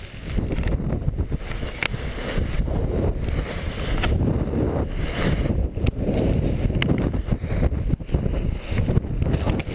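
Wind buffeting and rushing over a helmet camera's microphone as a paraglider spins in a stalled wing. It gets much louder about half a second in, with scattered sharp snaps through it.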